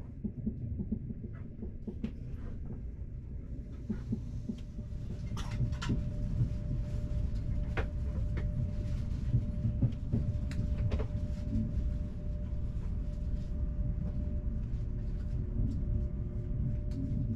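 Cabin running noise of a Frecciarossa 1000 (ETR 400) high-speed train: a low rumble with scattered clicks and knocks, and a faint steady whine from about five seconds in.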